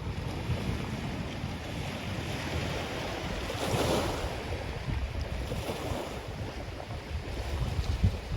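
Ocean waves washing onto a black sand beach, one wave breaking loudest about halfway through and a smaller one shortly after, with sea wind rumbling on the microphone.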